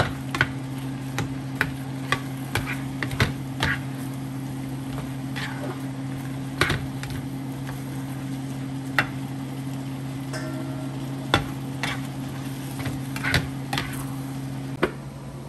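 Stir-frying in a nonstick frying pan: food sizzles while a utensil scrapes and taps irregularly against the pan, the taps being the loudest sounds. A steady low electrical hum runs underneath, and part of it cuts off near the end.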